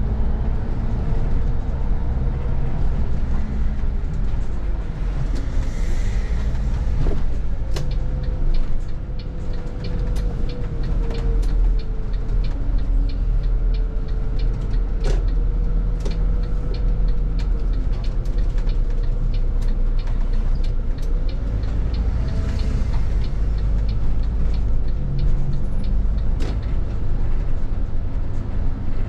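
City bus driving, heard from the driver's seat: a steady low engine and road rumble with a faint whine, and scattered short clicks and rattles through the middle of the stretch.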